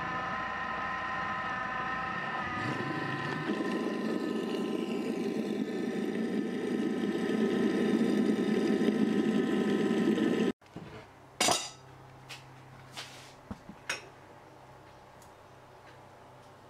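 Vorwerk Thermomix food processor running at high speed, its motor whining as it churns a thick, partly frozen ice-cream mix. The churning grows louder and then stops abruptly about ten and a half seconds in. A few clinks and knocks follow as the bowl is handled.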